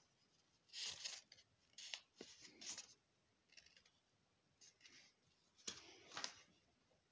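Paper rustling in a handful of short, faint bursts as sheets are handled and pages turned, with near silence between them.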